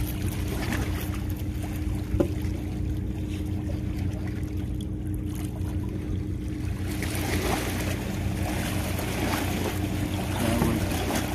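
A boat engine running steadily with a low, even hum. Water and wind noise swell in about seven seconds in.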